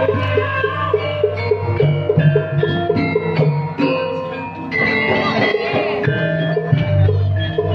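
Javanese gamelan music: struck bronze metallophones and gongs ringing out pitched notes over a quick, even beat.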